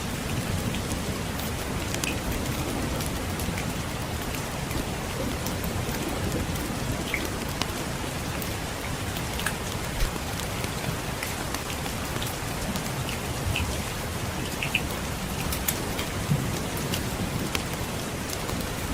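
Steady rain with scattered sharp crackles from a wood fire and a low steady rumble underneath.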